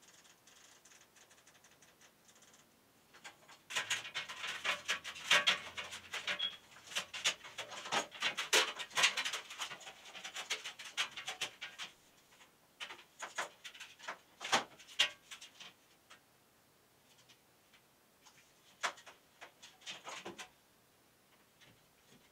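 Handling noise as LED grow-light strips and their cords are fitted under the glass shelves of a metal shelf unit: irregular rustling, clicking and light knocking, busiest from about 3 to 12 seconds in, then only scattered clicks.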